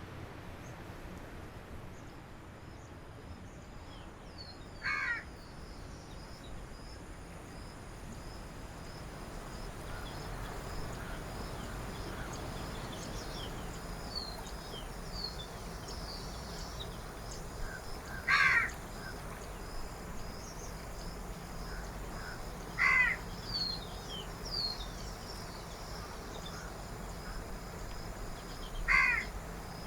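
Outdoor birdsong: a larger bird gives four short, loud, harsh calls spread a few seconds apart, the third followed by a softer one. Fainter high chirping from small birds runs throughout over a steady low background hum.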